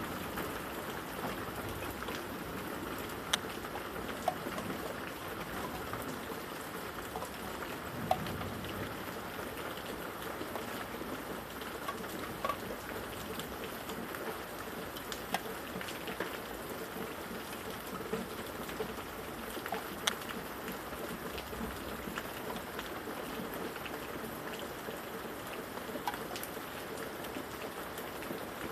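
Steady rain falling, a constant even hiss, with a few sharp drops tapping on hard surfaces now and then.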